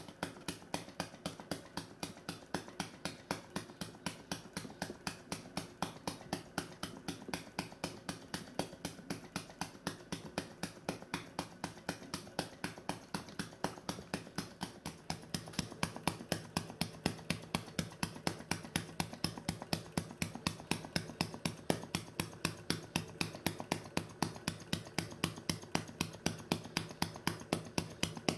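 A model vacuum engine running steadily, a fast, even clicking that gets louder about halfway through.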